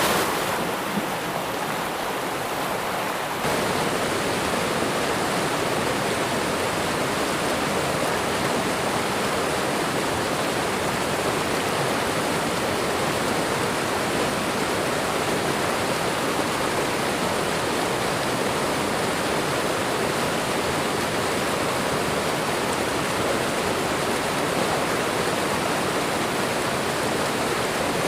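Waterfall and running water rushing steadily in an even, dense hiss. About three seconds in it becomes slightly louder and brighter, then holds steady.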